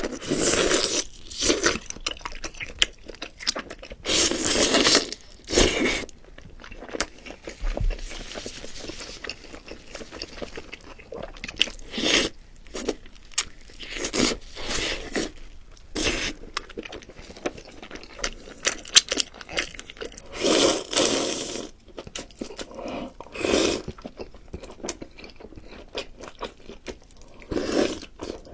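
Close-miked eating: crunchy bites and chewing in irregular bursts, a few louder than the rest.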